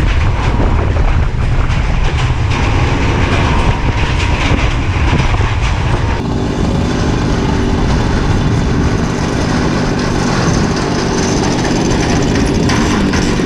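A freight train rumbling and clattering on the steel railway bridge alongside, mixed with a Simson moped's two-stroke engine running. About six seconds in the clatter drops back and the engine's steady note comes to the fore.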